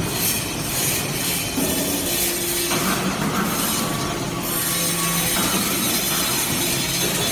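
Hydraulic briquetting press for metal chips and sawdust running: steady machine noise from its hydraulic power unit, with a hum that shifts pitch several times.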